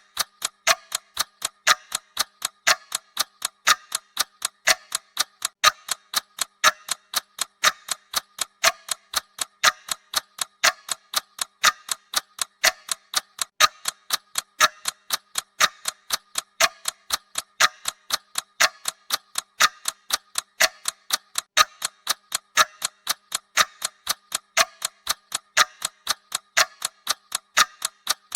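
Clock-style ticking sound effect of a countdown timer: crisp, evenly spaced ticks that keep a steady rhythm throughout.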